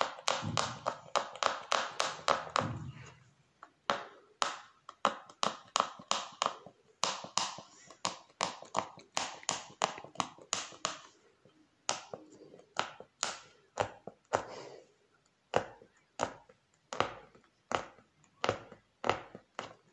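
Punch needle (oriental embroidery needle) punching again and again through fabric drawn tight in a wooden hoop, each stroke a sharp tap or pop, about two to three a second. The fabric is doubled, which the embroiderer says makes the work stiff.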